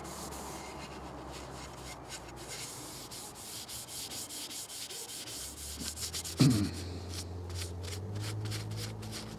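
Paper towel wiping stain onto a wooden rifle stock, a soft rubbing and scrubbing in repeated short strokes. One brief louder pitched sound comes about six and a half seconds in.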